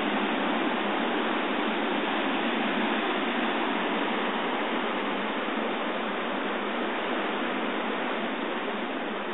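Surf breaking over a rocky shoreline at high tide: a steady, even rush of waves and foam, easing slightly near the end.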